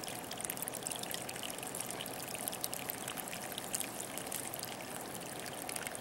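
Water pouring steadily from the open end of a garden hose and splashing onto wet, muddy ground.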